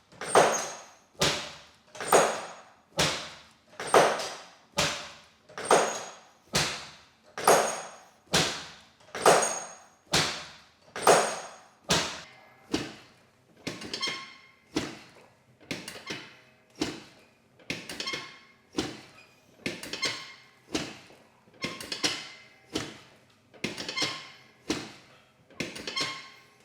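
A steady series of thumps from a chiropractic warm-up, about one a second, each with a short ringing tail. The thumps grow weaker about halfway through.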